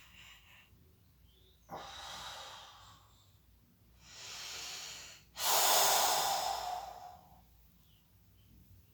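A person breathing heavily, three loud breaths in a row. The first starts sharply and fades, the second swells up slowly, and the third is the loudest, starting sharply and trailing off.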